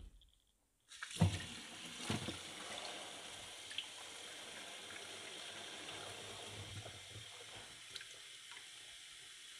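Kitchen tap running, its stream filling a plastic bottle held under the spout. About a second in, two knocks as the water starts, then the water runs steadily, easing a little near the end.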